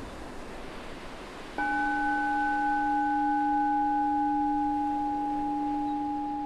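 A meditation bell is struck once about a second and a half in and rings on in a long, slowly fading tone. Under it is the steady wash of ocean waves.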